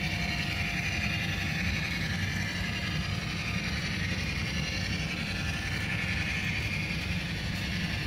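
Model passenger train running along the layout track: a steady rumble of metal wheels rolling on the rails, with a continuous higher hiss and no break.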